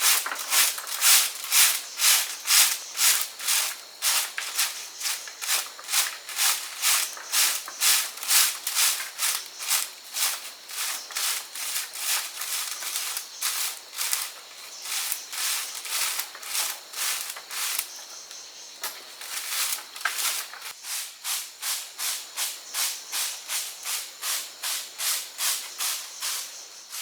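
Rhythmic back-and-forth scraping or rubbing strokes, about two to three a second, with a short pause about two thirds of the way through.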